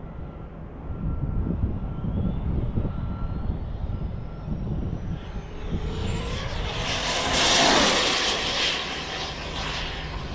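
Dual-motor 1/7-scale RC speed-run car at full throttle on a top-speed pass: its electric motors give a thin whine that climbs steadily in pitch as it gains speed. A loud rushing hiss builds to a peak about seven to eight seconds in, then fades.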